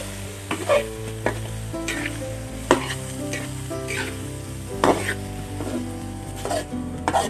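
Sliced broccoli stems and pork sizzling in a wok while a spatula stirs them, scraping and knocking against the wok about every second.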